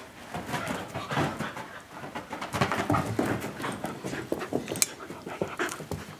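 Two young dogs, a bearded collie and a bearded collie–bobtail mix, play-wrestling up close: panting and scuffling, with irregular short knocks and rustles.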